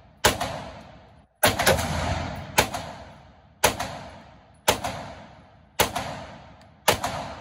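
AR-style rifle fired seven times at a steady pace of about one shot a second, each shot ringing and echoing in an indoor shooting range before the next.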